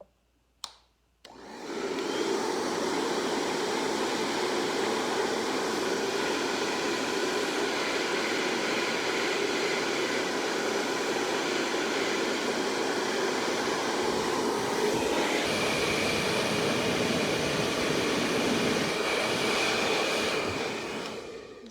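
Handheld hair blow dryer switched on about a second in, running with a steady rush of air and motor noise while it blows hot air onto the plastic bin lid, then switched off just before the end. A higher steady whine joins about three-quarters of the way through.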